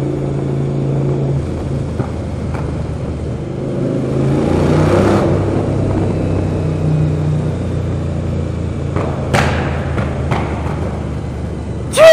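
Suzuki SV1000S's 90-degree V-twin running through stubby stainless Dominator exhausts while ridden through a road tunnel, its note shifting with the throttle and swelling louder about four to five seconds in. A few short sharp cracks come about nine to ten seconds in.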